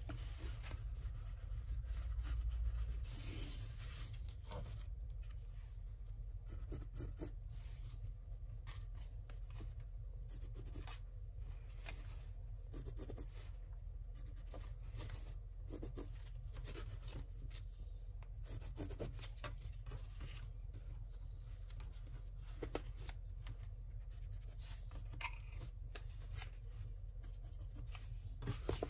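Pencil scratching short marking strokes on fabric along a ruler, with light ticks and rubs as the ruler and cloth are handled, over a steady low hum.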